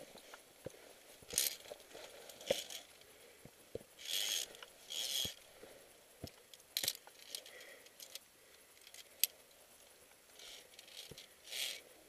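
Via ferrata climbing gear: metal carabiners clinking and clacking against the steel safety cable, heard as scattered sharp clicks, with a few short scraping rustles in between.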